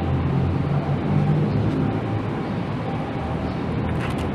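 Steady rumble of wind and road noise while riding a Gogoro Delight electric scooter.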